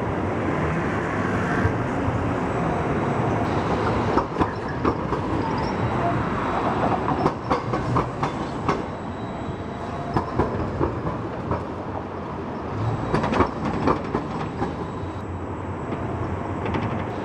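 Be 6/8 Combino low-floor tram rolling past through a street junction, its wheels clicking over the rail crossings and points in two runs of clicks, over steady city traffic noise.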